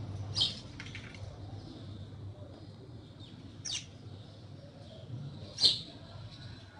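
Short, sharp bird chirps, three of them a couple of seconds apart, the last the loudest, over a faint steady low rumble.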